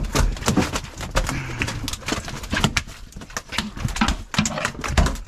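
Repeated knocks and deep thumps on a fibreglass boat deck as a conger eel is clubbed with a wooden stick and thrashes and slaps against the deck.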